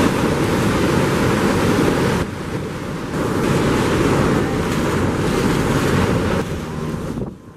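Loud rushing of wind buffeting the microphone, mixed with the roar of a tall waterfall. It eases briefly about two seconds in and fades near the end.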